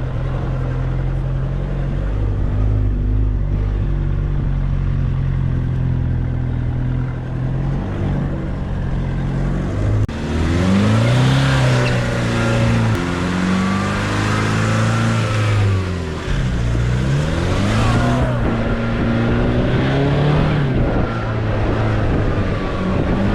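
Nissan Navara D40 4x4's engine running steadily, then from about ten seconds in revving up and down several times over a rush of noise for several seconds before settling again, as when powering through soft sand.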